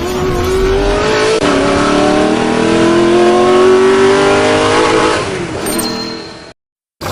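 Loud squeal from the engine's serpentine belt drive on a 2008 Nissan Qashqai, a whine whose pitch rises slowly as the engine revs, then fades and stops about six and a half seconds in. The squeal is the sign of a failing belt tensioner.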